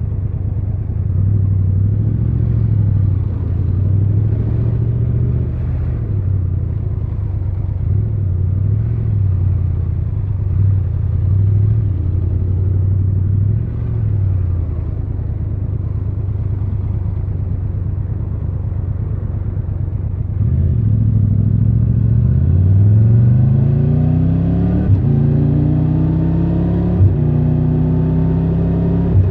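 Triumph Tiger 1200 Rally Pro's inline three-cylinder engine running at low revs for about twenty seconds, then accelerating hard. The revs rise, with two upshifts near the end.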